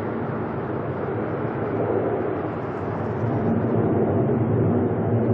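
Four-engine Boeing 747 jet airliner climbing after takeoff: a steady, loud engine roar that grows gradually louder as the plane comes overhead.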